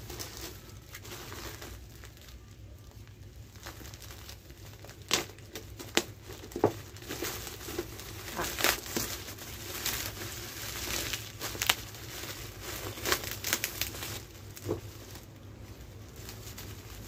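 Plastic bags crinkling as they are handled and pulled open, in irregular crackles with a few sharper snaps.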